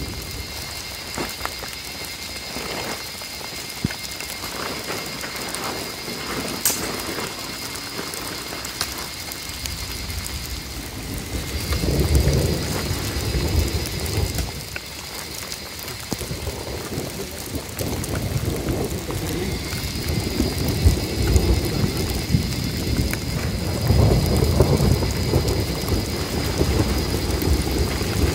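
Steady rain with rolling thunder: low rumbles swell up about twelve seconds in and again for the last several seconds.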